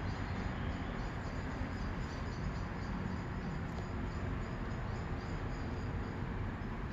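A 1959 Constructa K7 Typ 81 washing machine running, a steady, even mechanical noise.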